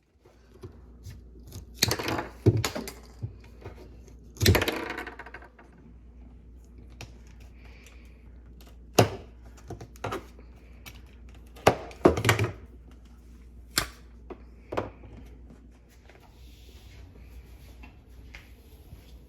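Irregular sharp knocks and clicks of hard objects being handled, a handful of them loud, over a low steady hum. One longer, rougher clatter comes at about four and a half seconds.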